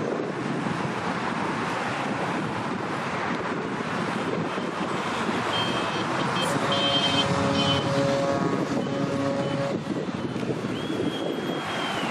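Wind buffeting the microphone over a steady rush of waterside noise. From about halfway in, a pitched, wavering sound of unclear source joins for several seconds, and near the end a short, high whistle-like tone sounds.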